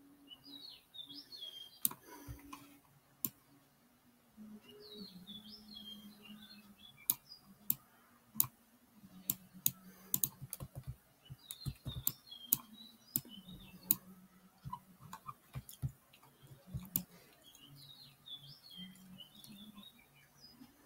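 Computer keyboard keys clicking at irregular intervals as someone types. A small bird chirps in short twittering bursts a few times in the background.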